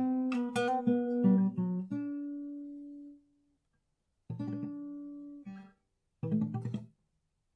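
Guitar played in short phrases: a quick run of plucked notes and strums, one note left ringing until it fades out, then after a pause two short strummed passages with a gap between them.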